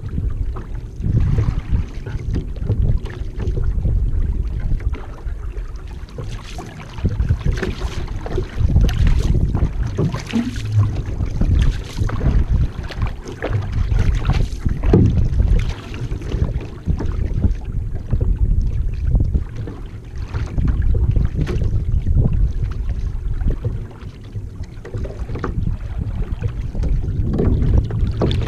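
Wind buffeting the microphone over water splashing and rushing along an outrigger canoe's hull as it is paddled, with a deep, uneven rumble and irregular splashes from the paddle strokes.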